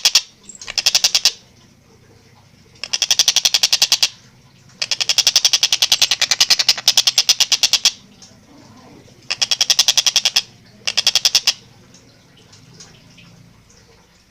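Tengkek buto (stork-billed kingfisher) calling in fast cackling rattles, each a rapid run of sharp, evenly spaced notes. There are five bursts, the longest about three seconds, separated by short pauses.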